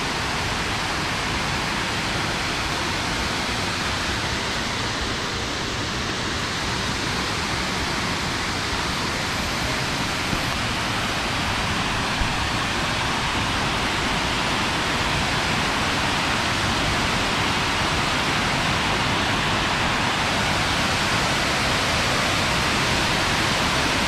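Waterfall cascading down a rocky slope: a steady rush of falling water that grows slightly louder toward the end.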